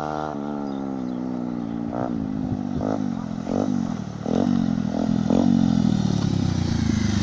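Bajaj Pulsar 150's single-cylinder engine running through an aftermarket Akrapovic exhaust as the motorcycle approaches. The engine note rises and dips several times, then grows louder from about four seconds in as the bike comes close.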